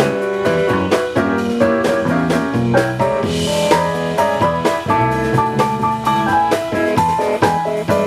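A live band plays an instrumental passage with no singing. A drum kit keeps a steady beat under sustained pitched instruments, with a bright cymbal-like wash about three seconds in.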